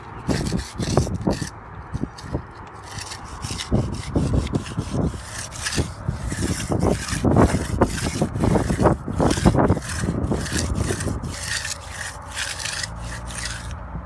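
Steel hand edger scraping along the edge of fresh concrete against the wooden form board, in repeated irregular strokes as it rounds the slab's edge.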